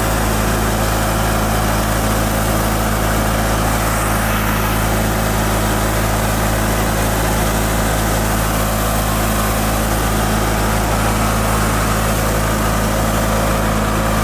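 Murray riding lawn mower's engine running steadily at full throttle while the mower drives along.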